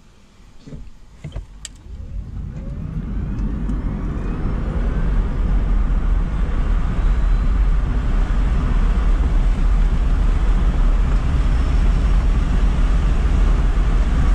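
Electric Smart Fortwo 451, fitted with a Steinbauer power module for extra motor current, accelerating hard from a standstill to about 60 mph, heard inside the cabin. After a few clicks about a second in, a faint motor whine rises in pitch while tyre and wind noise builds for several seconds and then holds loud and steady.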